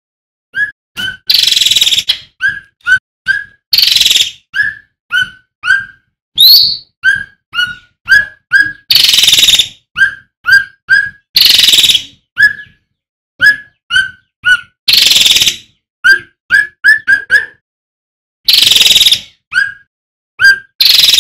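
Male cucak ranting (cucak rante) songbird calling over and over: short, clear whistled notes with a quick upward flick, mixed with loud, harsh, rasping calls that last up to about a second.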